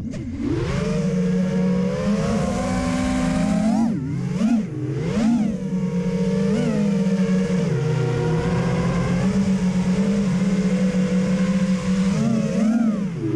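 Whine of a 5-inch FPV quadcopter's EMAX RS2205 brushless motors and tri-blade propellers, heard from the onboard camera, holding a steady pitch and swooping sharply up and down with throttle punches a few seconds in and again near the end.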